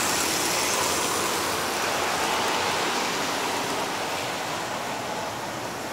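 Lionel O gauge model train rolling on three-rail track: a steady rolling noise of wheels on rails that slowly gets quieter as the passenger cars pass.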